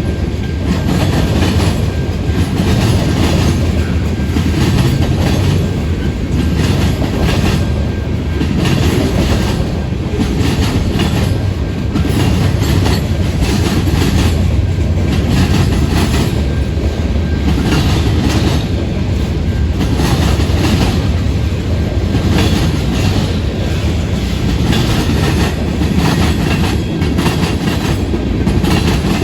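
Freight cars of a passing manifest train rumbling by, their steel wheels clicking steadily over the rail joints, with a faint steady squeal from the wheels.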